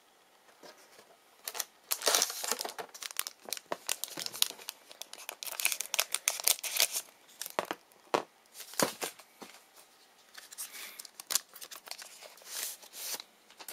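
Trading-card pack wrapper being torn open and crinkled: a run of irregular crackling and tearing that starts about a second and a half in and stops just before the end.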